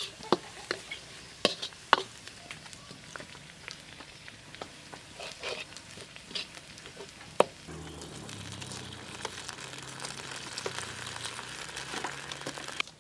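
Oil sizzling in a wok as a spatula stirs frying garlic and dried chilies, with sharp scrapes and taps of the spatula on the pan. Past halfway, after one loud knock, the sizzle turns into a louder, steady hiss as a dark sauce fries in the oil.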